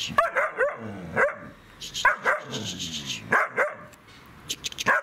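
Dog barking: short barks, mostly in pairs, repeated about once a second.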